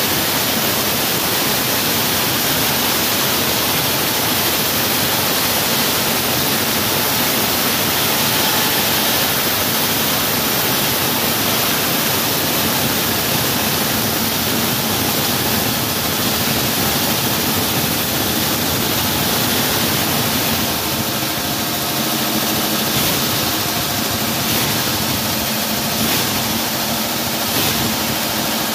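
Wall saw running and cutting through a wall: a loud, steady noise. About two-thirds of the way through, a steadier machine hum with distinct pitched tones comes through the noise.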